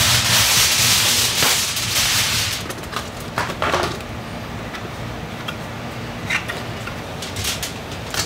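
Aluminum foil being handled onto a cooking sheet: a loud crinkling rush for the first two and a half seconds, then scattered light crinkles and taps as the foil is laid and smoothed down.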